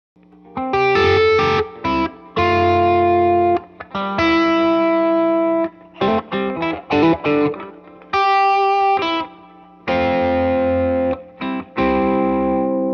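Electric guitar through a Klon Centaur-style overdrive pedal into a tube amp, lightly driven: chords struck and left to ring, broken up by quick choppy strums and a brief picked phrase.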